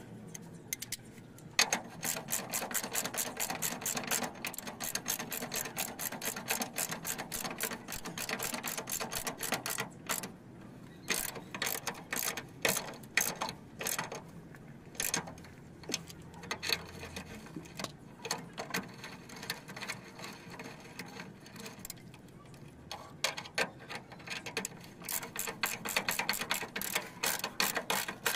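Hand ratchet wrench clicking in quick runs as a fastener is turned, with short pauses between strokes.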